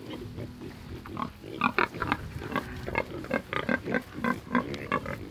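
Mangalitsa pigs, a sow with her piglets, grunting in a quick run of short grunts, several a second.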